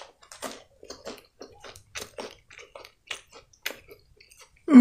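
Close-miked chewing of a chocolate-coated wafer candy: a string of short, crisp, irregular crunches. Near the end, a brief louder sound from the voice.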